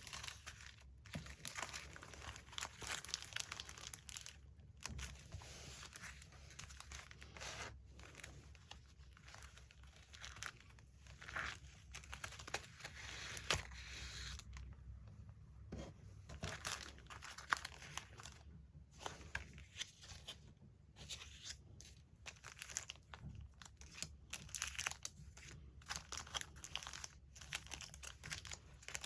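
Paper being handled close to the microphone, crinkling, rustling and tearing in irregular bursts.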